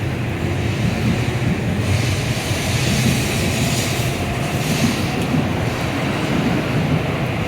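N700A Shinkansen train pulling out along the platform: a steady low rumble, with a louder hiss of rushing air from about two seconds in that fades near five seconds.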